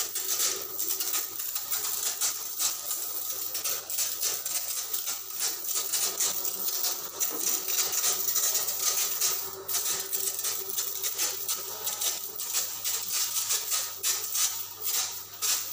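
Brass insecticide sprayer's lance hissing as it sprays cockroach insecticide in a fine jet, the hiss surging and fading irregularly, over a steady low hum.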